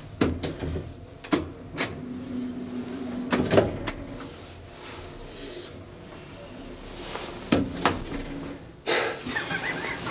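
Knocks and clicks from a hydraulic elevator's doors and buttons being pressed, with a short low hum about two seconds in and a sudden louder door noise near the end.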